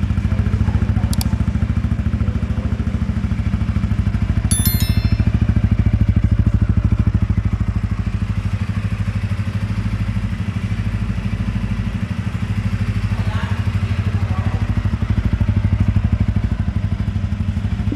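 TVS Ronin's single-cylinder 225 cc engine idling steadily, its exhaust giving an even, low thudding beat.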